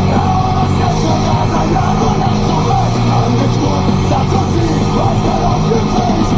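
Rock music with singing, playing in the tractor cab over the steady drone of the Case Magnum 340 CVX Rowtrac's engine.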